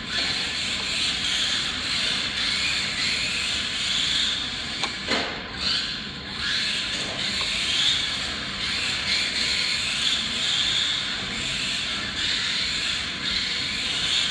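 Dromida 1/18 radio-controlled rally car running on a concrete floor: its small electric motor's high whine and the tyres' hiss rise and fall with the throttle. A short knock comes about five seconds in.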